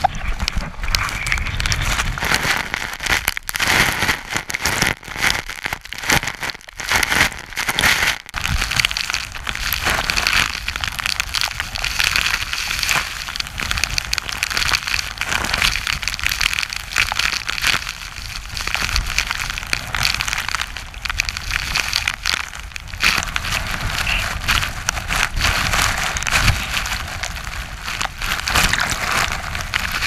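Typhoon wind buffeting the microphone, with rain and sea spray pelting the camera as waves break over the sea wall. A loud, rough rush with deep rumbling gusts, cutting out for brief moments a few times between about three and eight seconds in.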